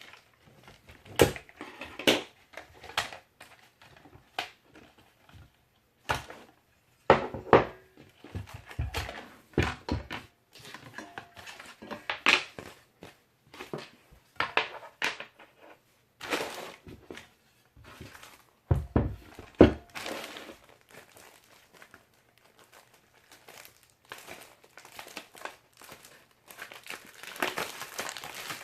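Packaging being handled during unboxing: crinkling and rustling wrap, with irregular sharp knocks and clacks as parts are moved and set down. The crinkling grows denser near the end.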